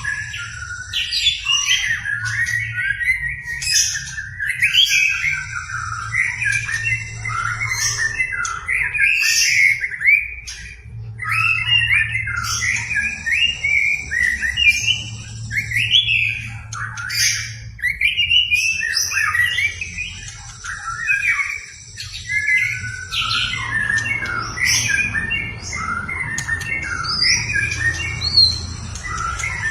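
White-rumped shama (murai batu) singing without a break: rapid, ever-changing whistles, chatters and harsh notes as it runs through its repertoire, with high thin whistled notes at times.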